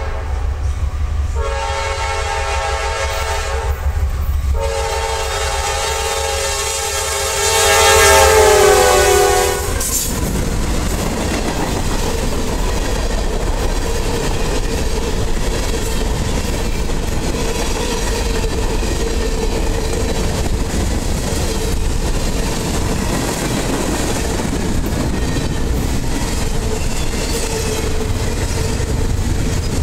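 CSX freight locomotive's air horn sounding two blasts, a shorter one and then a long, louder one that drops in pitch as the locomotive passes close by. Then comes the steady rumble and clickety-clack of freight cars rolling past on the rails, with a steady whine over it.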